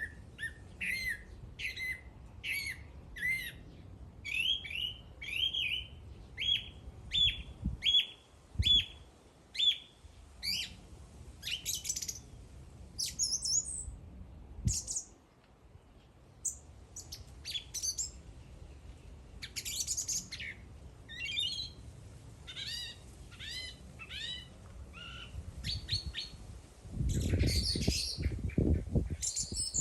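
A songbird singing: a run of short, repeated chirps at about two a second, then more varied, higher calls and quick trills. A louder rustling noise comes in near the end.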